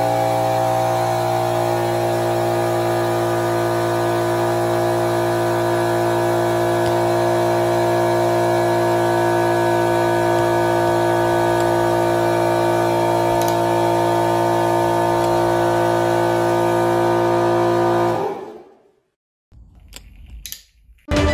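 Hydraulic press's pump motor running with a steady, unchanging hum made of several tones while the ram slowly crushes a pair of plastic sunglasses. The hum fades out about eighteen seconds in.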